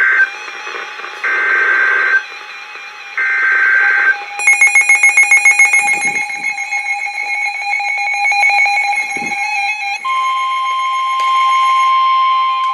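Weather radio emergency alert tones ahead of a tornado warning: three short electronic data bursts, a fast run of beeps, then a steady alarm tone that starts about ten seconds in.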